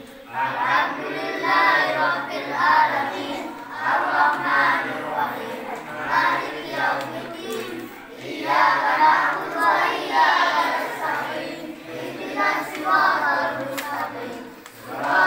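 A large group of children reciting istighosah prayers together from printed sheets, a chanted group recitation in unison that moves in short phrases with brief pauses for breath.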